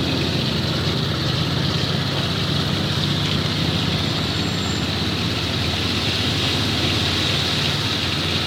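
A steady engine running under a constant hiss.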